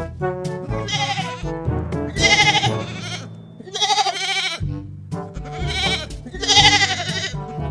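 Four quavering bleats from a farm animal over background music with a steady bass line.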